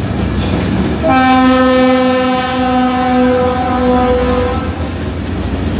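Train horn giving one long, steady blast of about three and a half seconds, starting about a second in, over the low rumble of a passing train.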